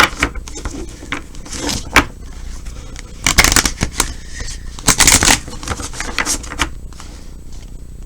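Tarot cards being handled and shuffled, a rustle and slap of cards in several short, irregular bursts.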